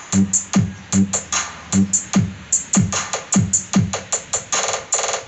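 Electronic dance music with a drum-machine beat played through a sound system of L36-style 18-inch folded-horn subwoofers. Deep kick drums drop quickly in pitch, under fast bright hi-hat hits.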